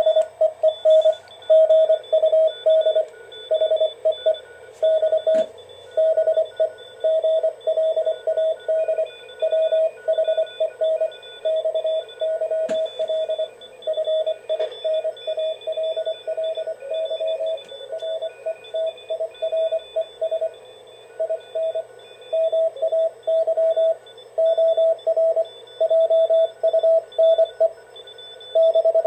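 Morse code (CW) signal heard through a Ten-Tec 1056 direct-conversion receiver: a steady mid-pitched tone keyed on and off in dots and dashes over a hiss of band noise, with fainter signals keying behind it and a couple of brief clicks.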